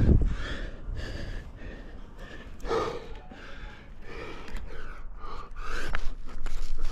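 A rock climber's hard, gasping breaths while straining on a hard pitch, several in a row with a loud one about three seconds in.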